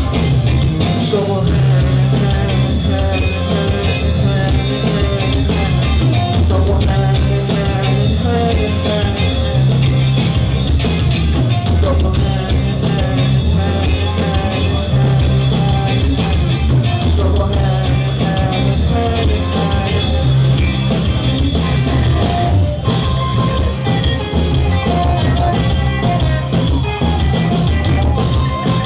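Live rock band playing loud: electric and acoustic guitars, bass guitar and drum kit.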